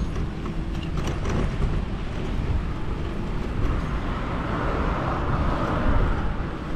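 Wind buffeting the microphone and road noise from riding a bicycle along a road, a steady low rumble. In the second half, traffic noise from a passing vehicle swells and fades.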